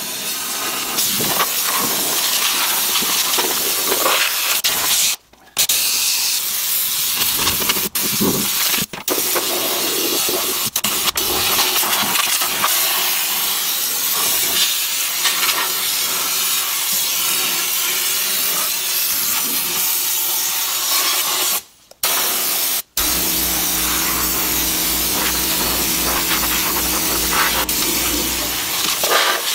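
Air-powered undercoating spray gun hissing as it sprays rust-proofing oil through an extension wand, cutting out briefly several times. A steady low hum joins the hiss for several seconds near the end.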